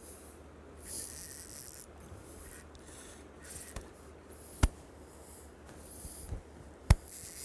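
Camera handling noise: rubbing and rustling against the microphone, with a few sharp clicks in the second half, the loudest near the end.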